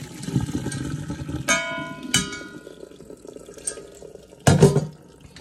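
Boiled macaroni and its hot water poured from a stainless steel pot into a stainless steel colander in a metal sink, with splashing and draining. The pot clanks against the metal twice with a ringing note, about a second and a half in and again shortly after, and a louder knock comes near the end.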